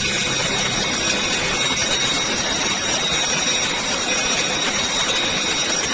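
Fire alarm going off continuously: a loud, steady, unbroken sound with a dense hiss and several high tones over it, without pause.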